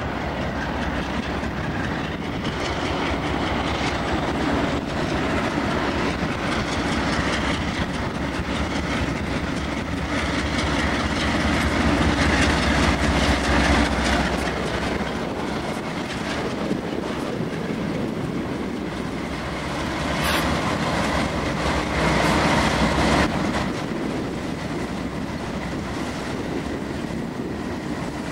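Diesel-hauled freight train passing close by: the lead BNSF GE C44-9W locomotives run past, loudest about halfway through, followed by a trailing Norfolk Southern locomotive and freight cars rolling by on steel rails. A single sharp click comes about 20 seconds in, and a faint steady squeal shows in the later part.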